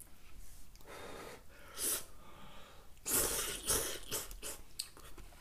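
A person slurping noodles with chopsticks from a bowl of soup: a few short, airy slurps, the longest and loudest about three seconds in.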